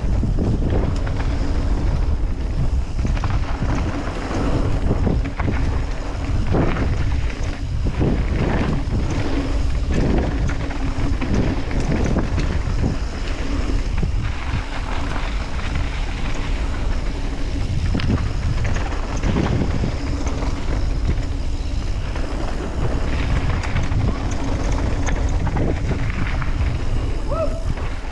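Wind rushing over an action-camera microphone during a downhill mountain-bike run, with the bike rattling and knocking over bumps and drops.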